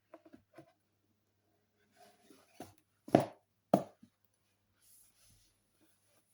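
Handling of a paperback comic collection: soft rustles and light taps, with two sharp knocks about half a second apart a little after three seconds in.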